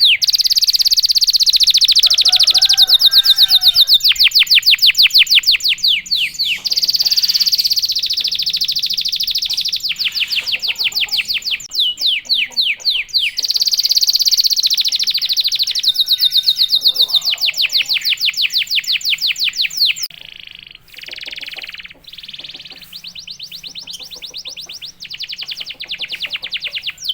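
Canary singing long, rapid trills, its 'rolls', fast runs of repeated high notes lasting several seconds each with short breaks between them. The song turns quieter and more broken up for the last several seconds.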